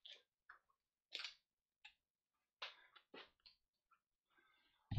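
Near silence with a few faint, scattered rustles and light knocks as a hard plastic back brace is handled and pulled on over clothing.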